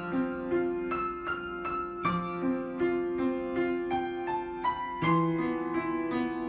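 Soft piano music: a melody of single struck notes, about two to three a second, over held low notes.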